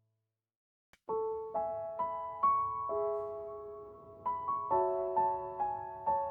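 About a second of silence, then a solo piano plays a slow, gentle melody of single notes, each struck and left to fade.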